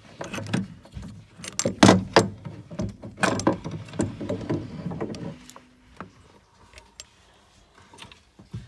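Handling noise from fitting a boiler's brass diverter valve: a busy run of metallic clicks, knocks and clatter for about five seconds, loudest about two seconds in, then a few scattered faint clicks.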